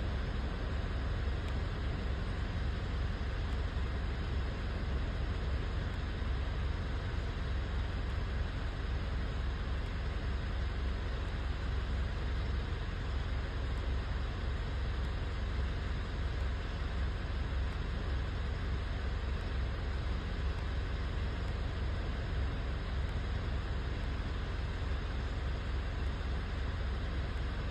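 Mitsubishi Triton engine idling steadily with a low, uneven throb; the engine has a misfire.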